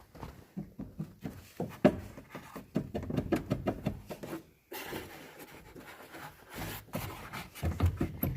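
Irregular clicks, taps and rubbing of small door-handle parts being handled and fitted, cutting out briefly a little past halfway.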